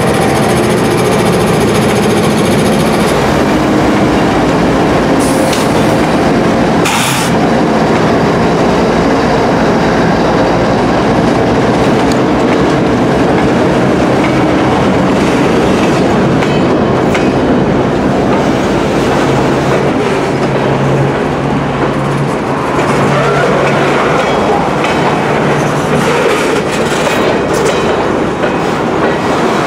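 A freight train passing close by. The trailing CSX diesel locomotive goes by in the first few seconds, then comes the steady rumble and clickety-clack of loaded flatcar wheels rolling over the rails.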